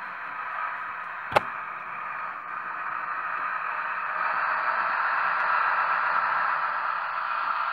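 Märklin H0 model of a DB class 218 diesel locomotive running on C-track toward the microphone and past it. It makes a steady, noisy running sound that gets louder as it draws near, about four seconds in, with one sharp click a little over a second in.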